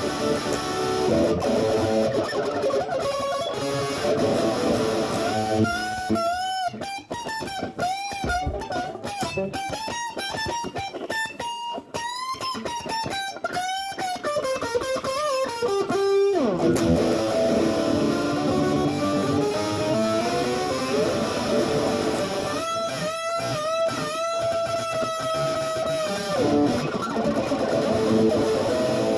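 Instrumental rock music led by electric guitar: a lead guitar plays bent notes with vibrato over the band, in two runs with a chordal stretch between them.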